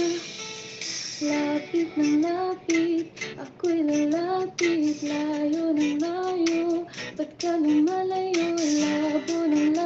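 A woman singing a song solo, a melody of held notes sung in phrases with short breaks between them.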